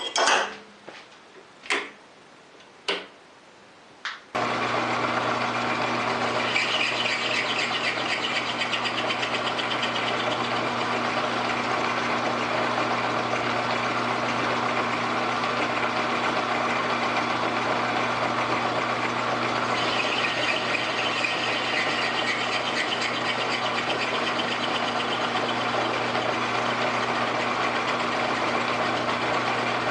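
A few sharp knocks, then a metal lathe running steadily while its turning tool cuts a brass bar. There is a steady motor hum under the hiss of the cut, and the cutting noise grows sharper twice for a couple of seconds.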